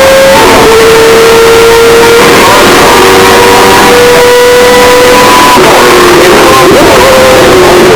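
Mazda 787B's four-rotor rotary engine at high revs, heavily distorted and clipped. Its note drops sharply about half a second in, like an upshift, then climbs slowly for several seconds. Past the middle the steady note breaks into wavering, shifting tones.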